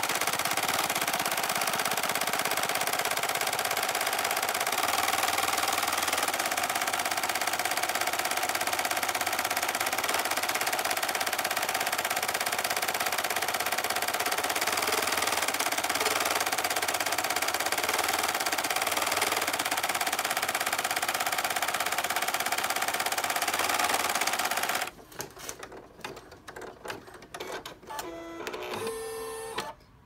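Single-needle home embroidery machine stitching fast, a dense continuous needle chatter, sped up in playback, as it sews on a cork backing. The stitching stops about 25 seconds in, leaving quieter scattered clicks and a brief tone.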